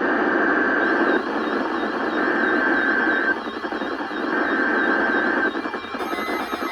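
NOAA Weather Radio SAME (specific area message encoder) header data tones: three bursts of about a second each, spaced about a second apart, marking the start of an emergency alert message. They are heard over heavy, hissy radio reception static.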